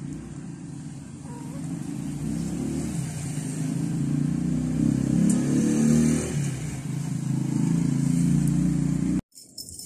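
Motor vehicle engine running, low and steady, growing louder over the first several seconds, then holding until it cuts off suddenly near the end.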